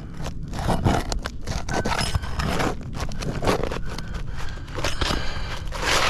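Irregular scraping and crackling of brittle roof shingles being worked loose and handled.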